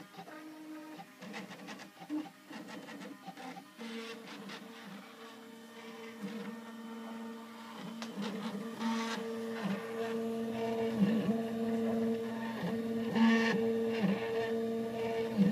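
Stepper motors of a home-built Ultimaker-style 3D printer whining as they drive the print head and axes through a print. The pitch shifts with each move, and the sound grows louder about halfway through.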